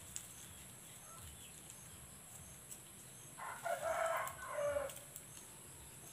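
A rooster crowing once, a single wavering call about a second and a half long, a little past halfway through.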